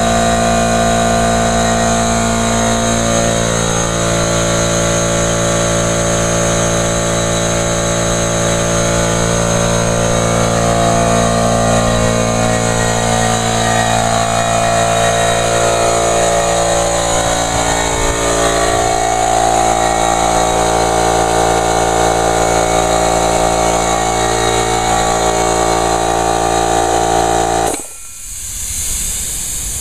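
Craftsman 1.5 hp 3-gallon air compressor running steadily as it pumps up its tank toward the 120 psi cut-off. About 28 seconds in it is switched off by hand: the motor stops suddenly, leaving a hiss of escaping air.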